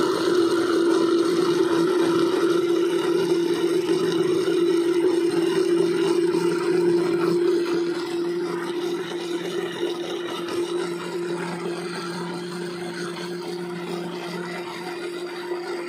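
Electric blender running steadily, its motor whining at one even pitch as it purées a wet mash of boiled fish, carrot and potato. It gets slightly quieter about halfway through.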